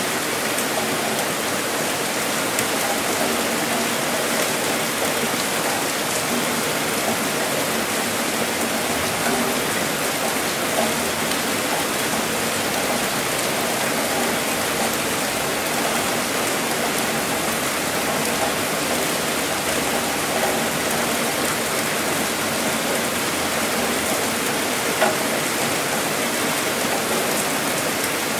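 Heavy rain falling steadily: a dense, even hiss, with a few slightly louder single drop hits now and then.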